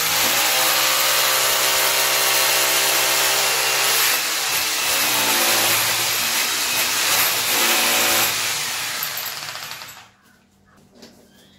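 Corded electric drill with a 6 mm bit boring a hole into a plastered wall, its motor running under load with the pitch dipping and recovering a few times. It winds down and stops near the end, leaving a few faint clicks.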